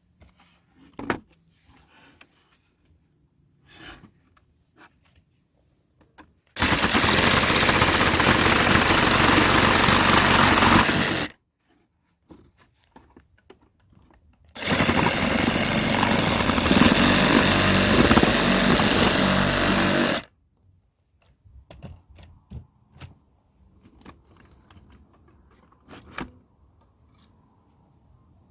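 A loud, steady machine noise runs twice, for about five seconds each time, switching on and off abruptly, with faint clicks and taps in between.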